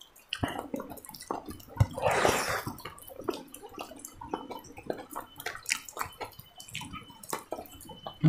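Close-miked wet chewing and lip-smacking of a person eating a handful of rice, many small irregular clicks and smacks.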